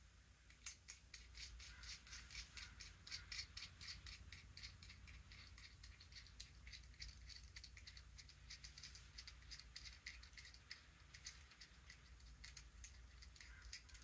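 Faint, quick metallic clicks and light rattles, many and irregular, from the parts of a brass doorknob assembly being handled and fitted by hand.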